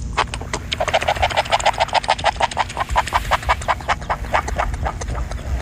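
Pufferfish croaking as it inflates: a rapid, even train of short croaks, about eight a second, fading out near the end.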